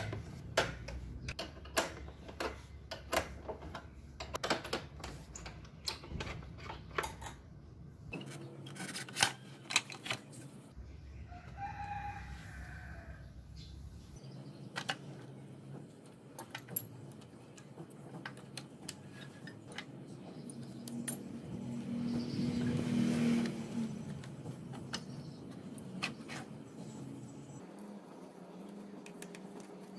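Light metallic clicks and clinks of a spanner and hands working on a motorcycle's battery compartment, rapid at first and scattered later. A rooster crows briefly in the background about twelve seconds in, and a louder swell of noise with a low hum rises and falls about twenty-three seconds in.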